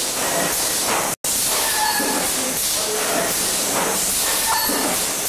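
A steady hiss, strongest in the high range, with faint short tones within it. It cuts out completely for an instant about a second in.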